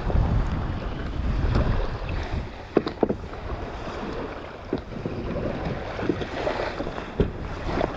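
Wind buffeting the microphone, heaviest in the first couple of seconds, over small waves washing at the shoreline, with a few sharp clicks and knocks from gear on a kayak being handled.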